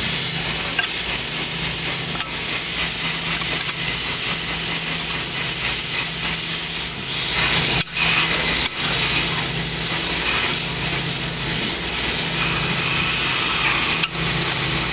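Steady hiss with a low hum underneath, briefly dipping a few times, over faint metallic clicks and scrapes of a thin steel snap ring being worked by hand into its groove in a Chrysler 42RLE transmission case.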